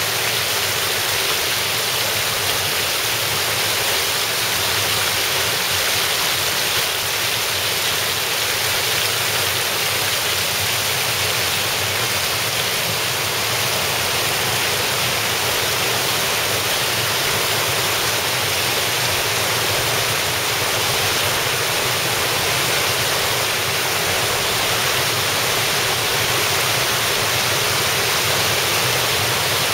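Small waterfall: stream water spilling over a low ledge and splashing into the pool below. It is a steady, fairly loud rushing that does not change.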